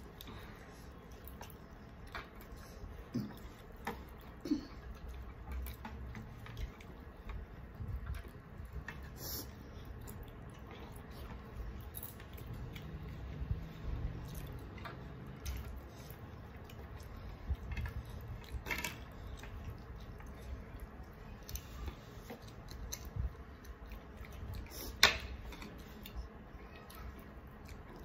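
Eating by hand: fingers squishing and mixing food on plastic plates, with chewing and scattered soft clicks, and one sharper click near the end.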